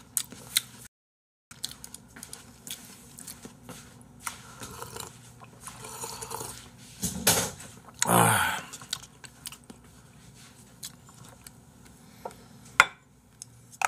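Tableware handling: scattered small clicks and knocks of a plastic cup and dishes on a desk. About seven seconds in, a breathy sip-and-exhale comes while someone drinks from the cup. Near the end a single sharp clink is the loudest sound, as a dish is picked up.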